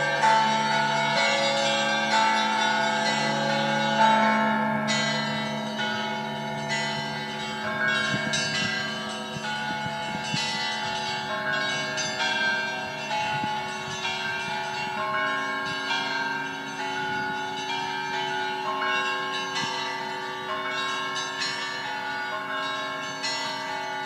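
Russian Orthodox church bells pealing: several small and middle bells are struck in quick succession over the deep hum of a larger bell, which is strongest in the first few seconds.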